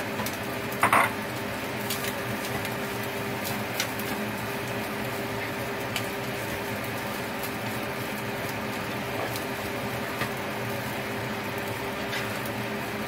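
A cooking utensil clinking and scraping against a frying pan as rice is stirred, with a few scattered sharp knocks, the loudest about a second in, over a steady hum.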